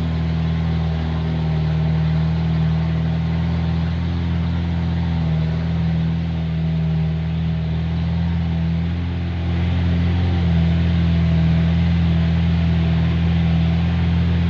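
Engine of a truck carrying about two tonnes, running steadily under load as it climbs a steep hill track. It grows a little louder about two-thirds of the way through.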